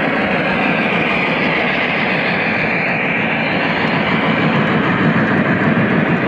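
O-gauge model train of a Union Pacific articulated steam locomotive and its cars rolling past on three-rail track: a steady rumble of wheels and motors that grows a little louder near the end as the cars pass closest.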